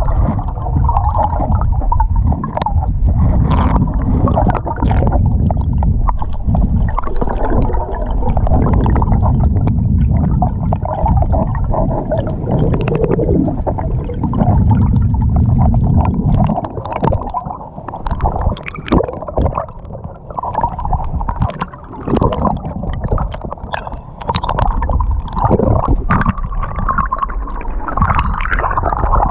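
Muffled underwater sound picked up by a camera in its housing: a low rumble of moving water with gurgling and many small crackles and clicks. The low rumble thins out about two-thirds of the way through, leaving the crackling and a wavering hum.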